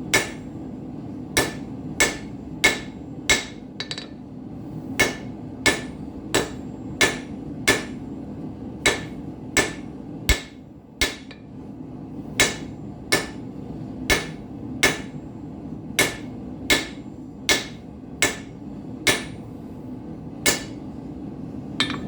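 Hand hammer striking hot steel on an anvil, drawing out a nail, about one and a half blows a second in a steady rhythm, each with a short metallic ring. A gas forge runs underneath with a steady low roar.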